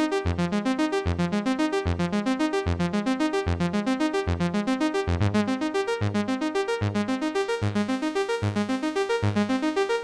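ASM Hydrasynth synthesizer playing a Prophet-5-style brass patch: a fast, even pulse of short pitched notes over a repeating bass note. The tone grows brighter in the second half.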